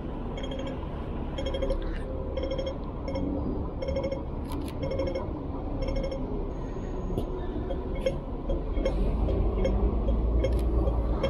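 Pedestrian crossing signal beeping, about one short beep every two-thirds of a second, fading out about six seconds in, over steady road traffic rumble that grows louder near the end as buses pass.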